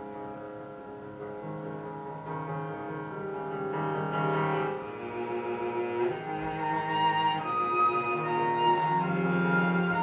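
Live contemporary chamber music: a cello bowing long sustained notes together with a woodwind, growing steadily louder.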